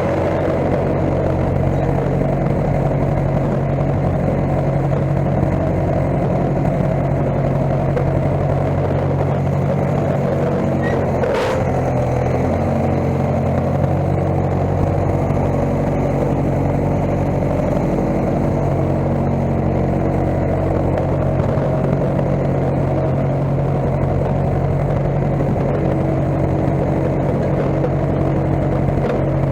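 Case skid steer's engine running steadily at an even speed, with a single sharp click about halfway through.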